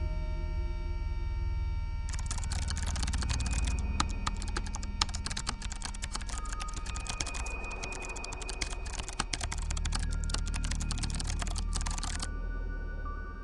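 Rapid computer-keyboard typing, a dense run of key clicks that starts about two seconds in and stops about a second before the end, over soft ambient music with sustained tones.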